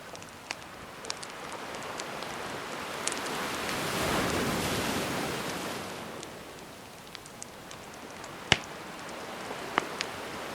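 Gentle sea waves washing onto the shore, with one wave swelling and receding in the middle, over a crackling wood fire that gives scattered sharp pops. The loudest pop comes a little past eight seconds in.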